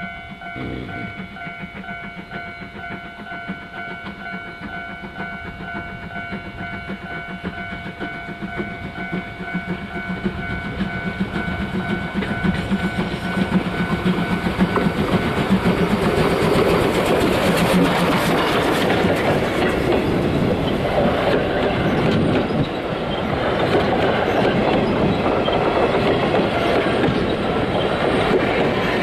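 JNR Class C56 steam locomotive C56 44 approaching and passing close by, its exhaust beats growing louder. Its coaches then roll past with wheels clacking over the rail joints. A steady bell-like ringing sounds through the first half and stops about halfway through.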